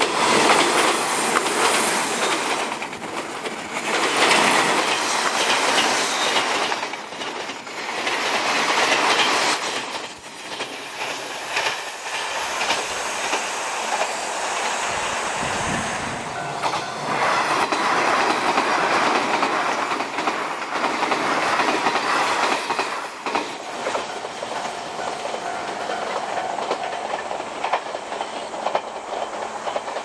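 381-series electric limited express train passing on a curve: wheels clattering over the rail joints, with a thin high squeal from the wheels in the curve. The sound dips briefly about halfway, builds again with more squeal, then fades toward the end.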